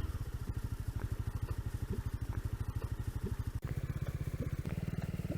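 Motorcycle engine running at low revs with a fast, even pulsing, its note stepping up twice near the end.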